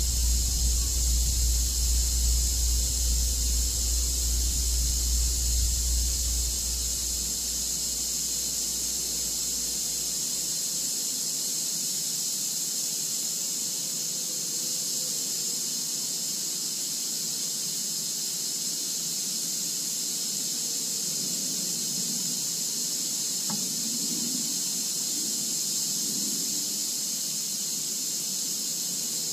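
Steady high-pitched hiss throughout, with a low rumble under it that fades out about seven seconds in.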